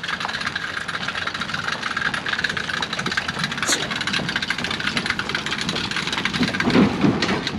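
An engine running steadily with a hiss over it, and a short voice near the end.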